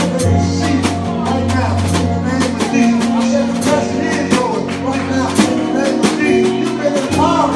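Live gospel band playing: a drum kit heard up close, with quick, frequent cymbal and drum hits over a steady bass line, guitar and singing.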